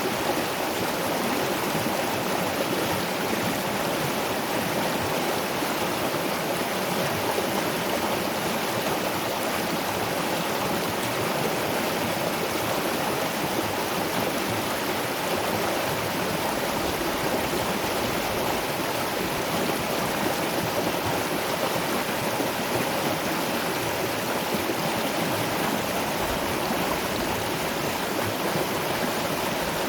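Waterfall and river water rushing in a steady, even wash with no breaks or changes.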